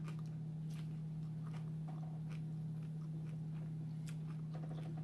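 Chewing a crispy seafood egg roll: faint scattered crunching clicks over a steady low hum.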